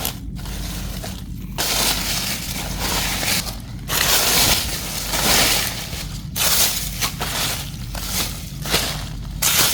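Dry leaf litter and plant debris crunching and rustling in irregular bursts, one every second or two.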